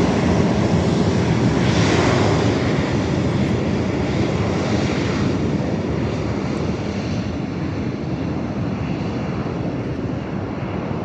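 Alaska Airlines jet airliner's engines heard as it departs: a loud, steady rush of jet noise with slow surges, fading gradually as the plane moves away.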